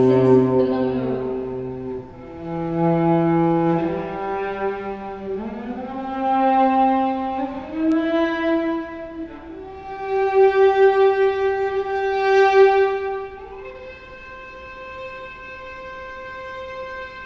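Solo cello bowed in slow, long held notes, some sliding up into the next. It falls quieter on a long held note near the end.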